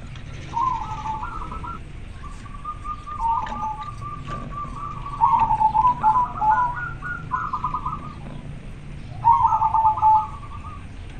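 Male zebra dove (perkutut) singing its cooing song, the call a male gives to a female: four phrases of quick, rolling coos, the loudest about halfway through and near the end.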